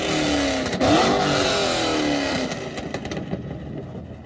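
A car engine is revved hard once about a second in, and the revs fall away over a second or so. A few short pops come from the exhaust as it settles, and then the sound fades out.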